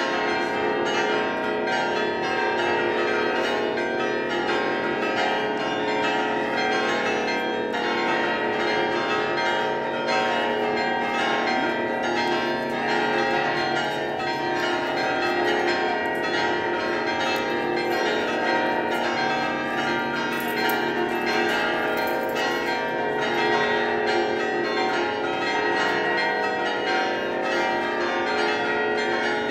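Large set of church bells ringing a festive peal: many bells of different pitches struck in dense, overlapping strokes, sounding together without a break, their tones hanging on between strikes.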